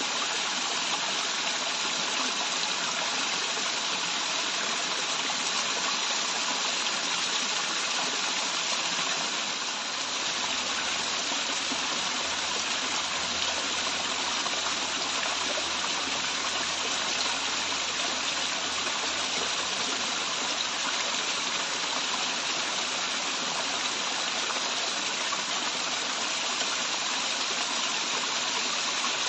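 Waterfall water rushing and splashing steadily, an even, continuous hiss strongest in the upper range.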